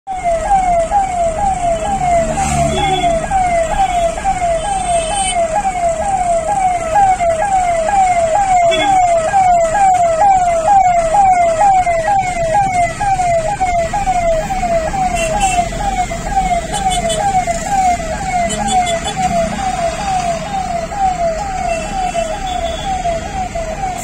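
Ambulance siren sounding continuously, a rapid wail whose pitch falls in each cycle and repeats evenly about twice a second, over the low rumble of traffic.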